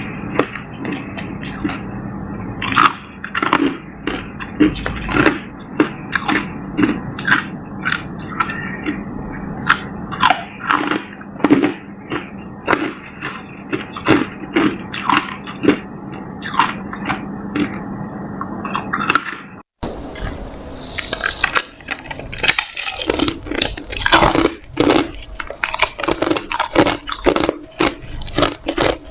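A person biting and chewing hard ice close to the microphone: repeated irregular crunches and cracks. There is a brief break about two-thirds of the way through, after which the crunching carries on.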